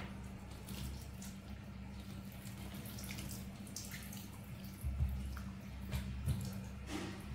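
Water splashing and dripping as it is poured from a plastic dipper over a wet baby monkey, over a steady low hum. A couple of soft thumps come about five and six seconds in.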